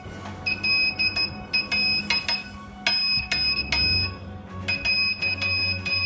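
Homemade battery-powered Morse code buzzer, keyed by touching two clip leads together, sounding a high steady tone in short and long beeps. The beeps spell out 'hello' in Morse code.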